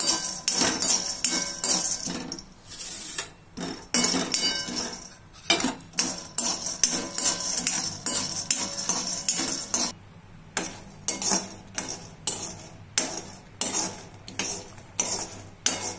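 Metal spoon stirring and scraping peanuts around a metal kadai as they roast, a steady run of scrapes with the nuts rattling and clinking against the pan, with a brief pause about ten seconds in.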